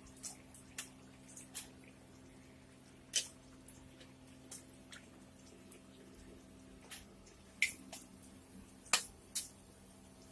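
Scattered sharp pops and crackles of food cooking in hot oil in a pan, irregular and fairly quiet, over a steady low hum.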